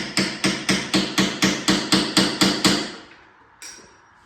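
Hammer striking a punch against the steering stem nut of a Honda CRF450R to tighten it by feel: a steady run of ringing metal-on-metal strikes, about four a second, that stops a little under three seconds in.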